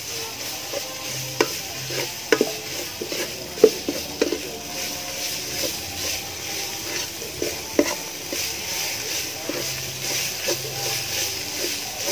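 A metal spatula stirs and scrapes around a large aluminium pot with a few sharp knocks against the metal, the loudest about three and a half seconds in. Oil and chopped aromatics sizzle steadily underneath.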